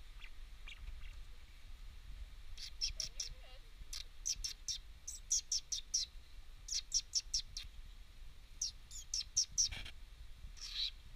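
A bird chirping: quick runs of three or four short, high notes, repeated again and again from a few seconds in. A single soft knock near the end.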